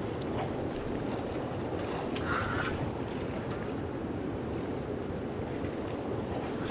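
A fast-flowing river rushing over a cobble bed, a steady noise. A brief higher-pitched sound comes about two seconds in.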